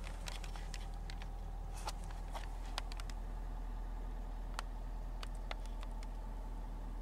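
Ford F-250 Super Duty's 6.7-litre Power Stroke turbodiesel V8 idling, a steady low hum heard inside the cab. Scattered light ticks of rain land on the roof and windshield.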